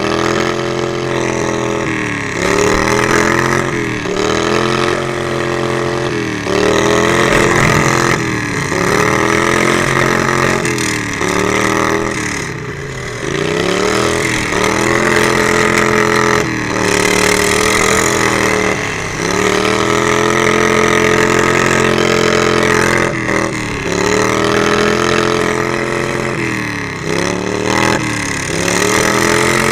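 Riding lawn mower engine running hard, its pitch repeatedly dropping off and climbing back up every two seconds or so as the throttle is eased and reopened.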